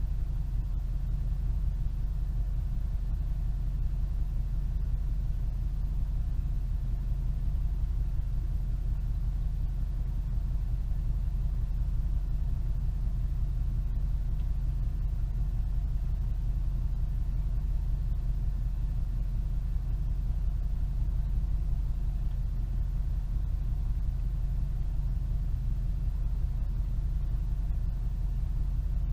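Steady low rumble of a vehicle, picked up by a dash cam inside it, with no change throughout.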